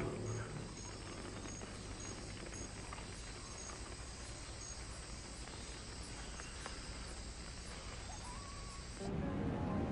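Faint night ambience of crickets chirping in a regular rhythm over a steady hiss from the film soundtrack. Background music comes back in near the end.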